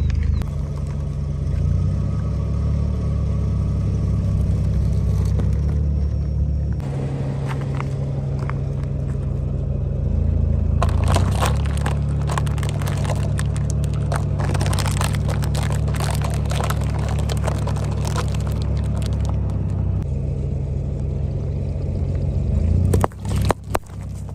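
A car engine runs at a low steady idle as a tyre rolls slowly over brittle objects and crushes them. A long run of crackling and snapping starts about a third of the way in and fades out well before the end.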